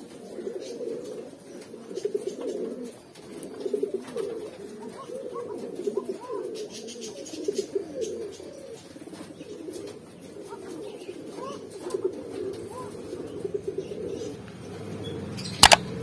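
Mookee pigeons cooing in repeated low bouts, one after another. A single sharp click sounds near the end.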